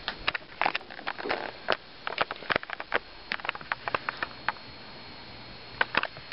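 Light, irregular clicks and taps from a cat scampering and scrabbling after a toy on carpet. They come thick over the first four seconds or so, then a short cluster near the end.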